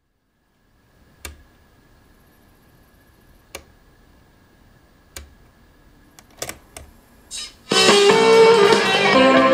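Superscope C-205 cassette recorder with its music output cut off: faint hiss with a thin steady tone, and a few sharp clicks, several close together, as the deck's controls are worked. Guitar music from the deck comes back in loudly about eight seconds in.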